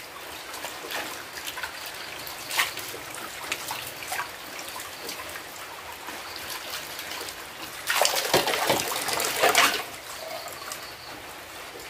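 Tap water running in a thin stream onto dishes in a basin as bowls are rinsed by hand, with occasional knocks of the bowls. A louder stretch of splashing comes about eight seconds in.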